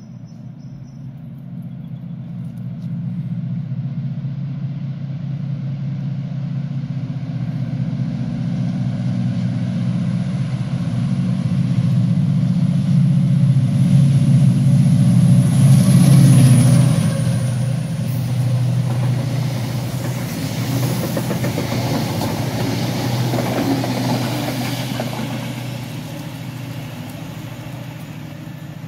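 Class 68 diesel-electric locomotive 68011 and its passenger train passing through a station without stopping. The diesel engine's low drone builds as the train approaches, with a thin high whine, and is loudest about halfway through. Wheel-on-rail rumbling and clatter follow as the coaches pass, fading away near the end.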